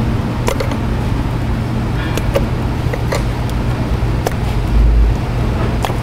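Sharp plastic clicks of electrical connectors being unplugged from the ignition coils of a V8 engine, disabling the ignition ahead of a cranking test, over a steady low hum. A low thump comes a little before the five-second mark.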